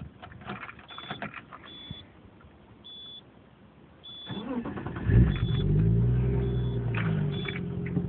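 1995 Subaru SVX flat-six with a Stebro exhaust being started: after some clicks and a high chime beeping about once a second, the starter cranks about four seconds in, the engine catches with a brief rise just after five seconds, then settles into a steady idle through the exhaust.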